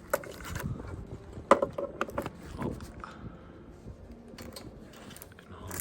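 A series of clicks and knocks from an Outback Motortek motorcycle tool box as its lid and key lock are handled, the sharpest knock about a second and a half in.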